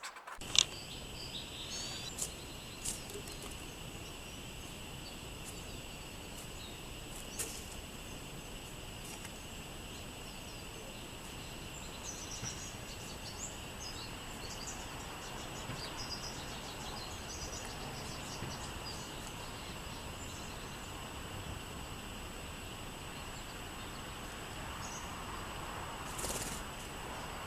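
Outdoor ambience with small birds chirping here and there over a steady high-pitched drone. A sharp click sounds about half a second in.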